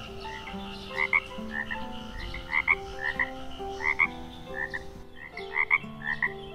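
Frogs croaking in short double calls, repeating about twice a second, over soft background music of long held notes.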